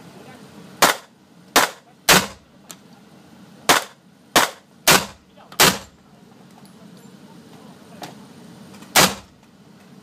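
M4-style carbine fired as single shots, eight in all: three in the first couple of seconds, four more in quick succession around the middle, and a last one near the end. Each shot is a sharp crack that echoes off the walls of an indoor range.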